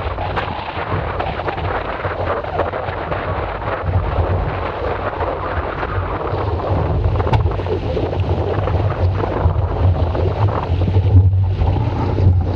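Wind buffeting the microphone on a sailing keelboat: a heavy, steady rumble, with a hiss of wind and rushing water over it.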